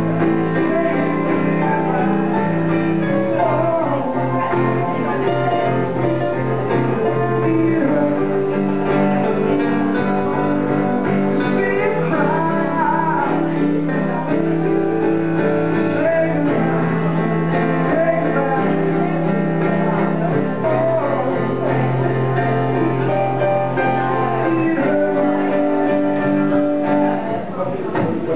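Live acoustic jazz: a woman singing a slow melody over acoustic guitar and Roland digital piano accompaniment, with long held chords underneath.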